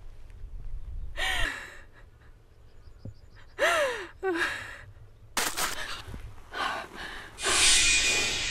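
A woman crying: a few short, high, wavering sobs, then gasping breaths. Near the end a loud rushing noise swells up.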